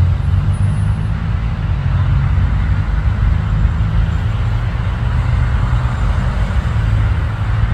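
Jet aircraft overhead: a steady, loud rumble of its engines, a little fuller in the second half.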